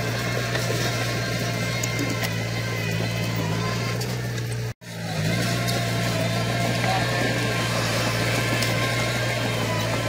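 Bulldozer's diesel engine running steadily under a constant drone, with a sudden brief cut in the sound a little before halfway.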